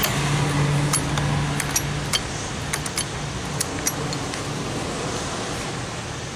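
Light metallic clicks and clinks of small hardware being handled, scattered irregularly and thickest in the first few seconds, over a steady low hum that stops about two seconds in.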